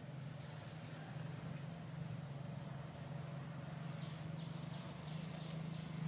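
Outdoor ambience: a steady low hum under the high, steady buzz of an insect, with a few faint brief rustles.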